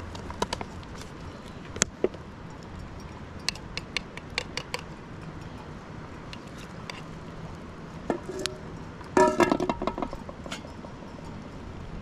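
Cookware and containers clinking as they are handled: scattered light clicks, then a burst of ringing clinks about nine seconds in.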